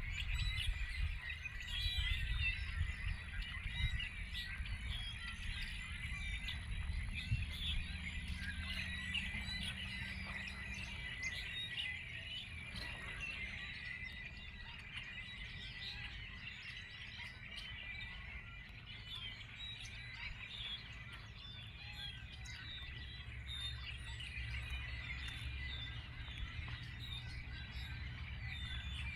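Many birds chirping and singing at once, a dense, continuous chorus of short high calls, over a low steady rumble. A thin high steady whine runs underneath and stops about halfway through.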